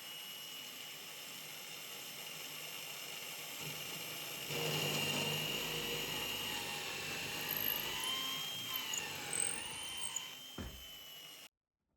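Electric drill boring through a beech block: a steady high whine that gets louder about four and a half seconds in as the bit bites into the wood, its pitch wavering near the end before it cuts off suddenly.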